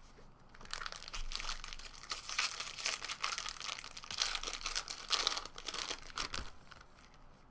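Trading card pack and cards being handled, giving crinkling and rustling of the wrapper and cards from about half a second in until near the end.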